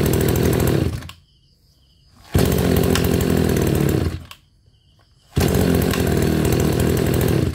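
Kawasaki TJ27 brush cutter's small two-stroke engine running at high speed in three bursts of about two seconds each. Each burst cuts off sharply, with near silence between them.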